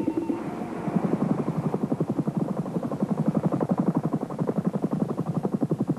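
Helicopter rotor chopping in a fast, even beat that builds up during the first second and then holds steady.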